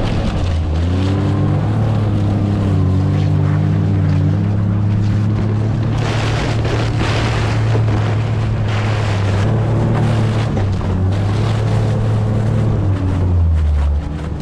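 Utility vehicle (Mule) engine running as it is driven, its pitch dropping and rising a few times with the throttle, with a rush of wind over the microphone.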